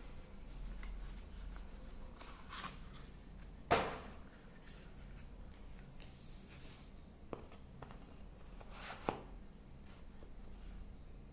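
A metal two-hole paper punch and paper sheets being handled: a few faint rustles and knocks, the sharpest about four seconds in.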